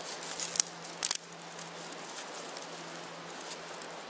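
Small fire crackling inside a stainless steel wood-gasifier camp stove just lit with zip fire starter, with scattered light ticks and a brief louder noise about a second in.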